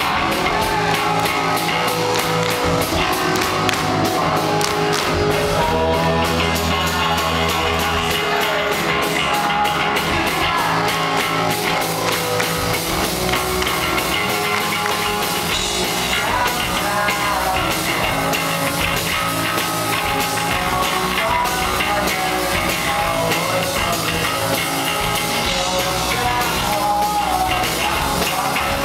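A rock band playing live: electric guitar, bass guitar and drum kit, loud and steady, with a fast cymbal beat through roughly the first half.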